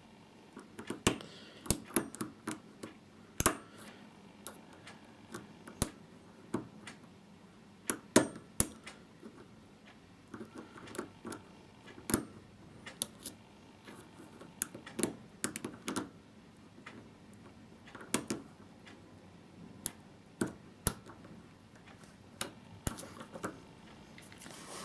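Lock pick and tension wrench working the pins of an unlubricated 5-pin WMS euro cylinder lock, making small irregular metallic clicks and ticks, sometimes several close together.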